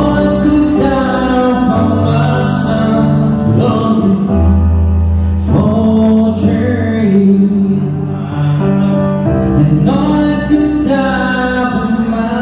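Live band playing a song with a singer during a sound check, with long held bass notes under the vocal line.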